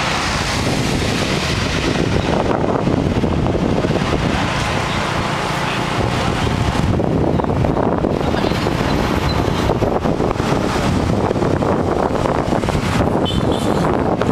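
Wind rumbling on the microphone over vehicle engine and traffic noise, recorded from a moving vehicle on a city street.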